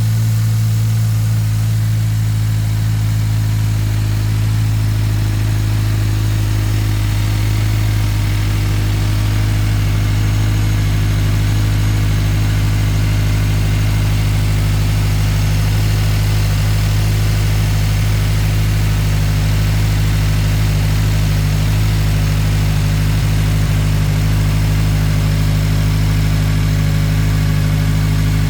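2022 Subaru WRX's turbocharged 2.4-litre flat-four idling steadily on its raised cold-start idle, just after starting.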